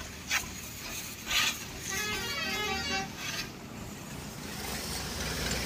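A vehicle horn honks once for about a second, a couple of seconds in. Short hissing bursts of pressure-washer spray come before it, and a steadier spray builds near the end.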